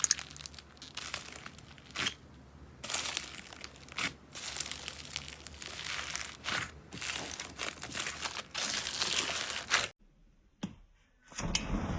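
Slime being squeezed, poked and stretched by hand, making crinkly, crackling squelches in irregular bursts. About ten seconds in it cuts off suddenly, and a different sound follows shortly before the end.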